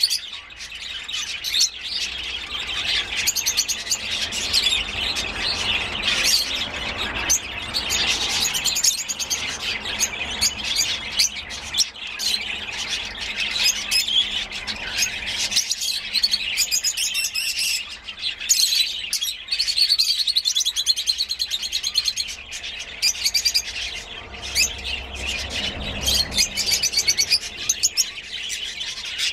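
Rosy-faced lovebirds chattering while mating: a dense, unbroken stream of high chirps and twitters.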